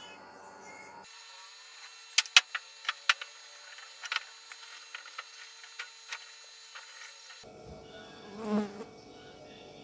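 Orange peel crusted with set gypsum plaster being pulled and snapped off by hand: a run of sharp cracks and clicks, loudest a couple of seconds in, then sparser. Near the end a short buzz swells and fades.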